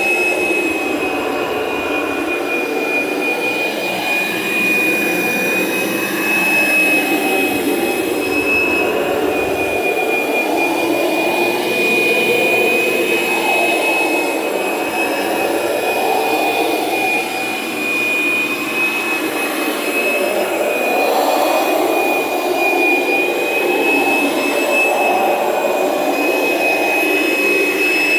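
Kirby Generation 3 upright vacuum's motor running steadily, with its carpet shampooer attached, giving a high, steady whine over a rushing airflow.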